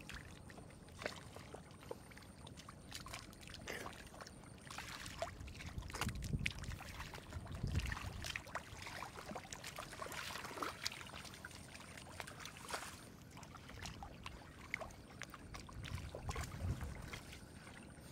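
Hands sloshing and splashing through shallow muddy water and squelching in the mud while grabbing at eel-like fish: irregular wet splashes and slaps, with a few duller, heavier sloshes around the middle and near the end.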